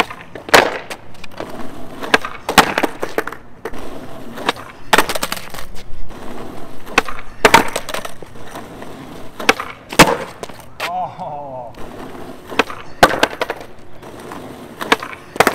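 Skateboard on flat asphalt during repeated nollie varial kickflip attempts: the nose popping off the pavement and the board clacking and slapping back down, a pair of sharp hits every two to three seconds, with the wheels rolling between.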